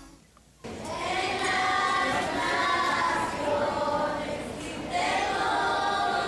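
A group of children singing together into microphones, starting about half a second in, with a short pause between phrases near the end.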